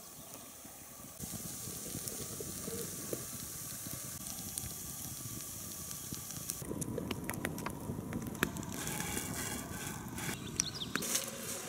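Wood campfire burning: a steady hiss with small crackles, turning to many sharp crackles and pops from about seven seconds in.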